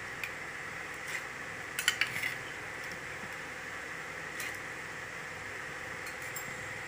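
Steel ladle clinking against the pan and the rim of an aluminium pressure cooker as soaked green gram is scooped into the kurma. There are a few light clinks in the first couple of seconds and a couple more later, over a steady background hiss.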